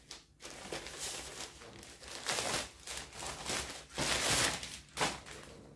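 Thin plastic packaging bag crinkling and rustling in irregular bursts as a pair of jeans is pulled out of it, the longest stretch about four seconds in.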